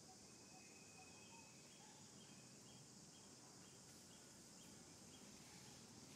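Faint outdoor ambience: a steady high-pitched insect drone, with a small bird chirping about twice a second and a short thin whistle about a second in.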